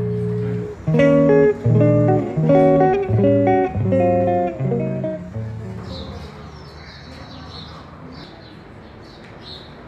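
Guitar music: plucked notes at an unhurried steady pace, about two a second, that die away about six seconds in, leaving faint background sound.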